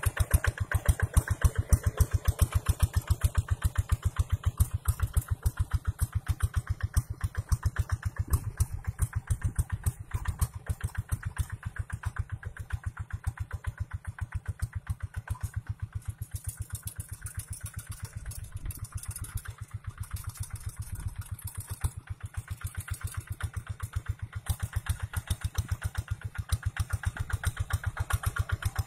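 Single-cylinder diesel engine of a two-wheel hand tractor chugging steadily while pulling a plough through dry soil, a rapid even train of exhaust beats. It grows softer for a while in the middle and louder again near the end.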